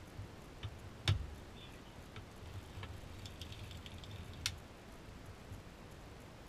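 Light metal clicks and taps from handling a hand-cranked circular sock knitting machine and its needles, with one louder knock about a second in and a sharp click about four and a half seconds in.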